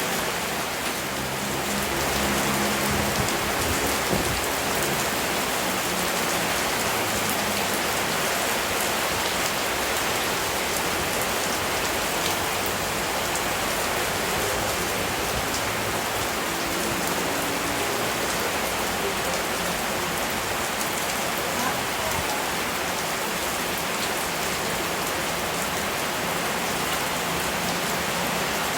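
Steady rain falling on a surface: an even, unbroken hiss.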